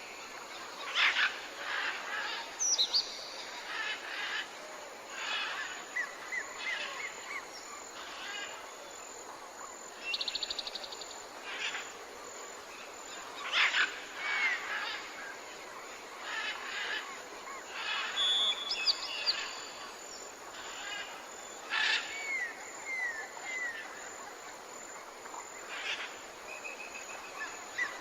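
Several different birds calling and chirping in turn: short whistled notes that rise and fall, a quick trill about ten seconds in, and harsher chirps, over a faint steady hiss.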